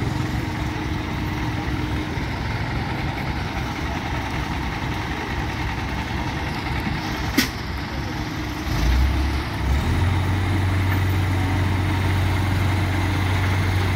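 Heavy diesel engines of the crane, backhoe and truck idling; about nine seconds in one engine picks up and settles into a steadier, deeper running. A single sharp click sounds a little past the middle.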